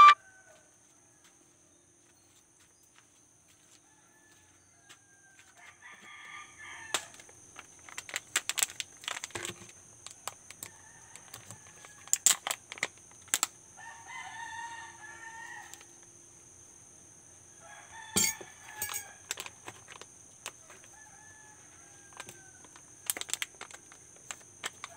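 Several roosters crowing, one after another, at about 6, 14 and 18 seconds; the crow near 14 seconds is the longest. Sharp clicks come and go throughout, over a faint steady high-pitched tone.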